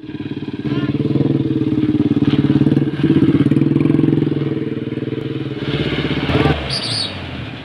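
A motor vehicle's engine runs loud and close with a steady, rapid throb. About six and a half seconds in it drops off to a lower rumble.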